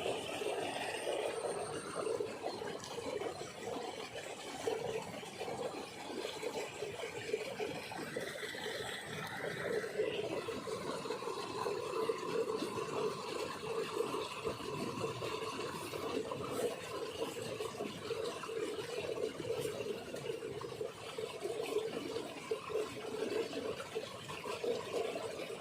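Fast-flowing water rushing steadily along an irrigation channel.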